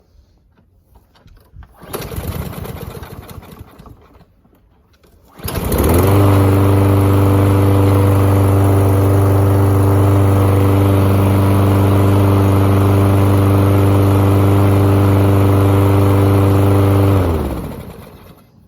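Lawn mower engine being pull-started: a first pull about two seconds in that doesn't catch, then it starts a few seconds later and runs steadily for about eleven seconds before it is shut off and spins down. It now runs under its own power after its gummed-up carburetor was cleaned.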